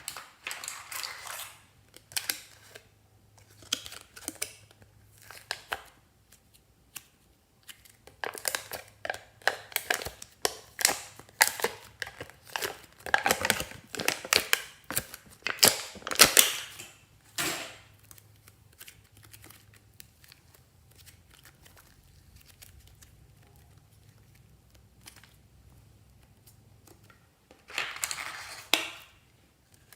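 Fluffy slime being squeezed and kneaded by hand, giving irregular bursts of crackling and popping clicks. The crackling is densest in the middle, then stays sparse for several seconds before one more burst near the end.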